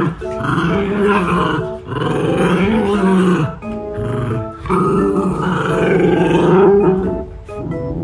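Two Shiba Inu growling and snarling at each other in rough play-fighting, in several long bouts with short breaks. Background music with short plucked notes plays under them.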